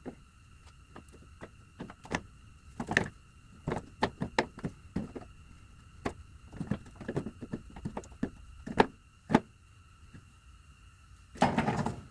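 Irregular clunks, knocks and clicks of a replacement hand clutch assembly being worked into the housing of an Allis Chalmers WD45 tractor, with a longer scraping rattle near the end as it goes in.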